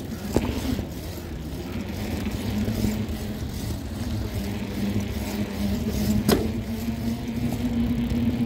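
Small wheels rolling over smooth concrete: a steady rumble with a hum, broken by two sharp clicks, about half a second in and again around six seconds in.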